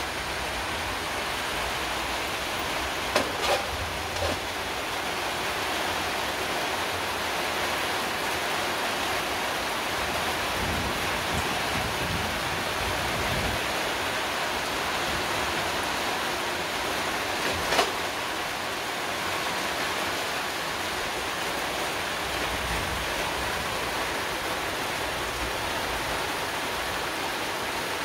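Heavy rain pouring down in a steady hiss. A few sharp taps stand out about three to four seconds in, and one more near eighteen seconds.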